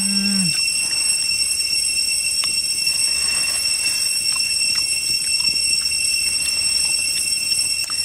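Cicadas droning in one steady high-pitched tone. A person gives a short hummed 'mm' at the start, and a few faint clicks come through.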